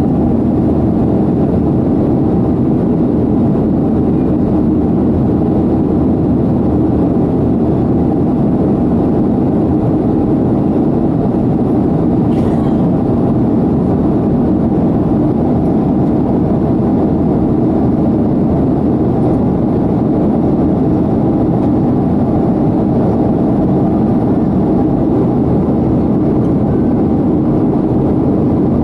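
Steady jet engine and airflow noise heard inside an airliner cabin while climbing after takeoff, a constant low drone.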